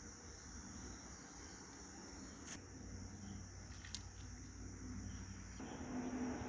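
Faint, steady high-pitched chirring of crickets or other insects, with two brief sharp clicks. A low steady hum comes in near the end.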